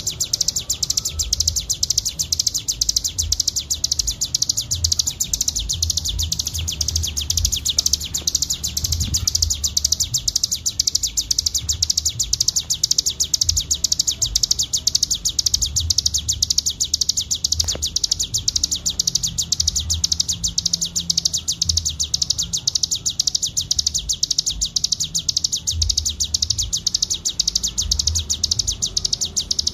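Ciblek gunung (cigun) singing in 'ngebren' style: a continuous, very rapid high-pitched trill of ticking notes with no pause. Irregular low thumps run underneath.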